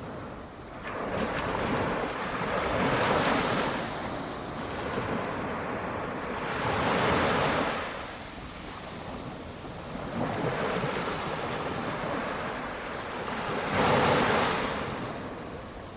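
Small waves on a calm sea breaking and washing up the shore, each wash swelling and fading over a few seconds. Three louder washes, the loudest near the end.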